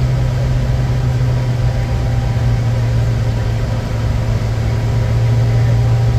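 Steady noise of a Bombardier Challenger 350 jet and its Honeywell HTF7350 turbofans: a loud, even low hum with faint higher tones, unchanging in pitch.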